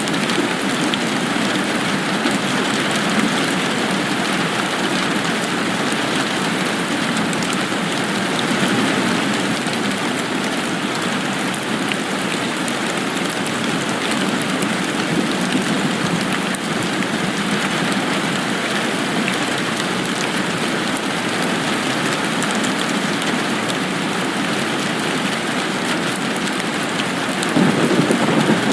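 Steady rain falling, an even hiss that grows a little louder near the end.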